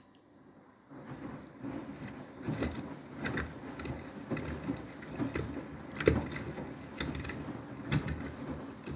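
Beko WTK104121W washing machine starting its rinse tumble about a second in. The drum motor turns the drum, with water and laundry sloshing and thudding at irregular intervals in a deep rinse.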